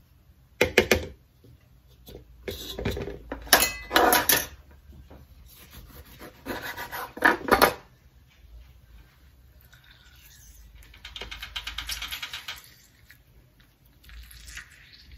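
Lemon being zested on a fine rasp grater: several quick runs of scraping strokes during the first eight seconds or so. A softer, longer scratchy rustle follows about eleven seconds in.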